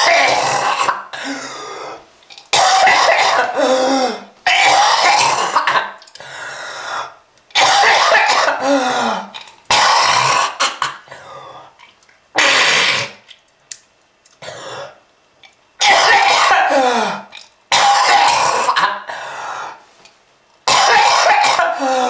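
A smoker's cough: one person coughing and clearing the throat in harsh fits of a second or two each, about every two seconds, with the voice catching in some of them.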